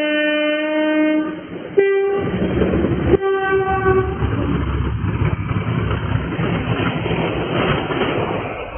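Diesel freight locomotives, Colas Rail Class 37s, pass close by. The horn sounds a long two-tone blast, high then low, then two shorter high notes. Then comes the loud rumble of the engines and the clatter of the heavily loaded log wagons rolling past on the rails.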